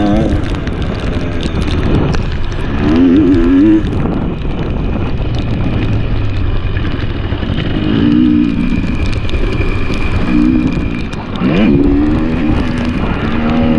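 2023 KTM 300 XC two-stroke dirt bike engine being ridden hard: the engine note climbs in rising revs several times, dropping back between pulls, over steady wind rush on the camera microphone.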